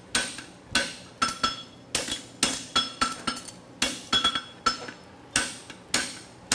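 Hand hammer striking a hot steel bar on an anvil, about two blows a second, with a metallic ring after many strikes. The bar end is being upset to gather material into the toe of a horseshoe.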